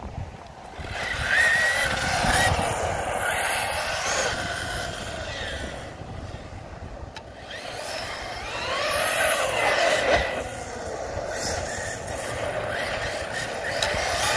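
Arrma Kraton 6S RC truck's brushless motor whining under hard driving, its pitch rising and falling several times as the truck speeds up and slows down.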